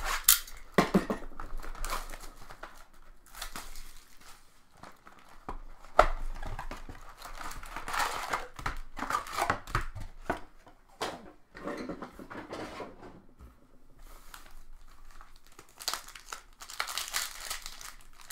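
Plastic wrapping of trading-card packs being torn open and crinkled in irregular bursts, with a few sharp clicks.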